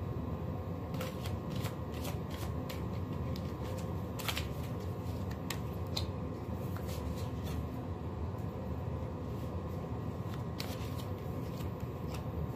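Tarot cards being handled, drawn from the deck and laid down on a wooden table: an irregular scatter of light card snaps and taps over a steady low background hum.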